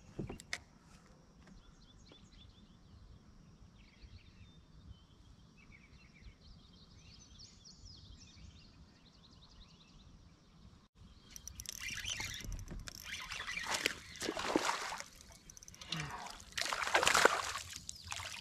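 Birds chirping and singing over quiet water. About eleven seconds in, loud splashing begins in repeated surges: a hooked fish thrashing at the surface.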